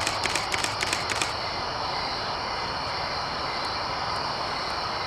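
Camera shutter firing a rapid burst of about ten clicks, roughly six a second, stopping about a second in, over a steady hiss of background noise.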